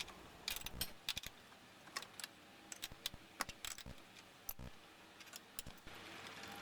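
Irregular light metallic clicks and ticks from hand work on a small mild-steel part, with tap-and-wrench tapping of handle holes done by hand. A steady hiss comes in near the end.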